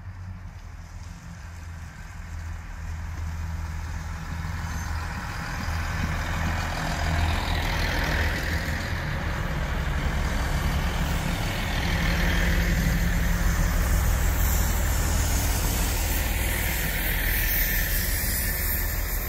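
Three-car Class 165/166 Turbo diesel multiple unit passing slowly. Its underfloor diesel engines run with a steady low hum over wheel and rail noise, growing louder as it draws alongside.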